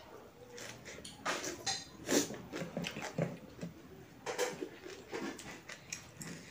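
Close-miked chewing and wet mouth sounds of a person eating by hand, with light scrapes as fingers gather millet rice on the plate.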